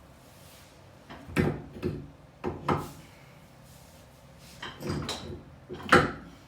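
Irregular metallic clunks and knocks from handling a car's drive axle and its parts, in two bunches, the loudest near the end.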